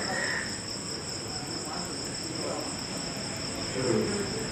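Crickets trilling steadily in two unbroken high-pitched bands, with a faint fast ticking above them. A short louder low sound comes a little before the end.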